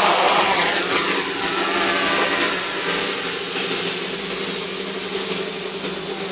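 A 450 mm quadcopter's electric motors and propellers buzz steadily in flight, with a high, steady whine above the propeller buzz. The pitch drops a little during the first second or so. The sound grows gradually quieter as the drone moves away.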